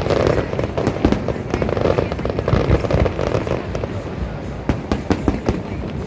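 Fireworks going off in quick succession, many overlapping bangs and crackles, busiest in the first half.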